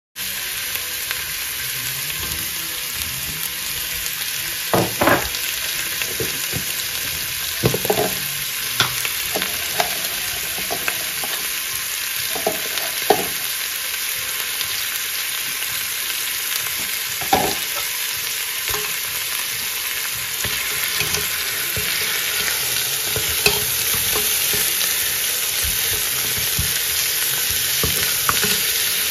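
Meat and onion sizzling as they sear in a stainless steel pressure-cooker pot, with a metal spoon now and then knocking against the pot as they are stirred.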